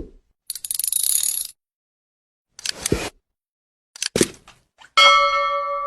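A few dull knocks and short bursts of rustling or scraping, then a bell-like metallic ring about five seconds in that lingers and slowly fades.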